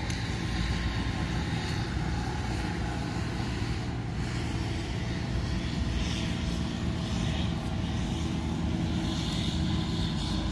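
A steady, unbroken low engine drone.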